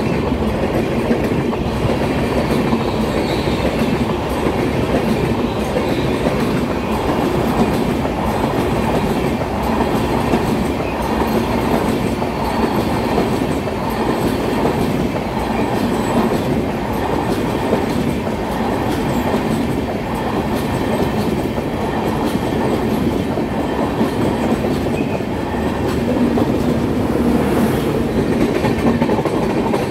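Rake of LHB passenger coaches passing close by at speed: a loud, steady rolling rumble of steel wheels on the rails with a clickety-clack from the rail joints.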